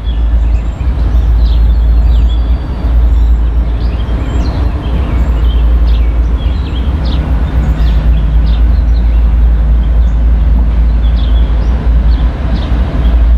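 Steady low rumble of an approaching diesel freight train, led by the Conrail-heritage GE ES44AC NS 8098, with short high bird chirps scattered throughout.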